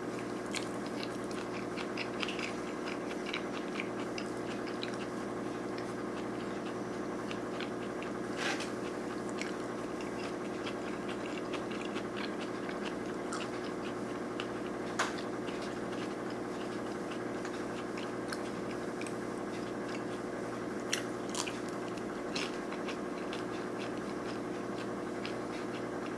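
Close-miked chewing and biting of sushi rolls with crispy fried shrimp. There are soft wet chews, small crunches throughout, and a few sharper crunches about 8, 15 and 21 seconds in, over a steady low hum.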